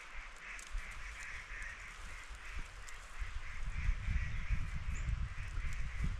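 Animal calls repeating in a steady pulsing chorus, with low rumbling coming in about three seconds in and becoming the loudest sound.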